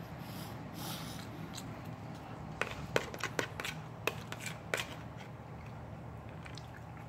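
A quick run of small, sharp clicks and taps from food being gathered up on a plate, bunched between about two and five seconds in, over a steady low background hum.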